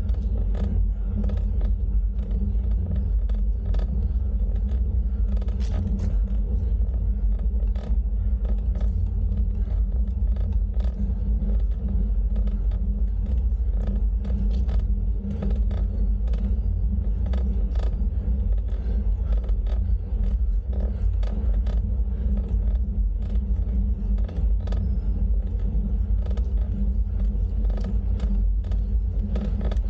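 Wind buffeting the microphone and road rumble from a bicycle in motion: a loud, steady low rumble, with many small clicks and rattles throughout.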